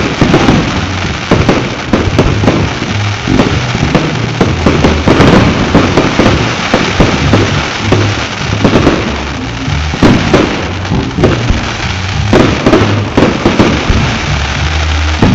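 Fireworks display going off in a dense, unbroken barrage: overlapping booms and crackling bursts, several a second.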